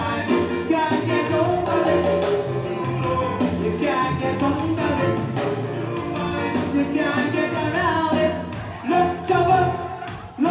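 Live soca band playing, with keyboards, a steady drum beat and a singer's voice over the top.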